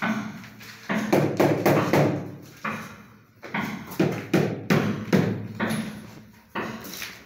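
Repeated tapping and knocking on a large ceramic wall tile as it is bedded into the adhesive, in quick runs of several knocks with short pauses between.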